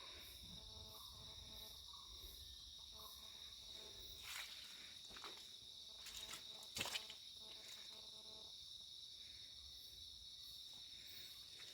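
Faint, steady high-pitched insect chorus in forest, with a couple of short knocks about four and seven seconds in.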